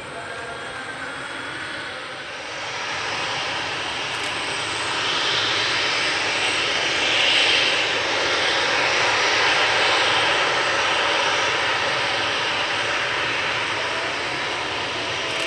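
Boeing 737-300 jet engines (CFM56-3 turbofans) running, a steady rushing jet noise that swells to its loudest about halfway through and then slowly eases off.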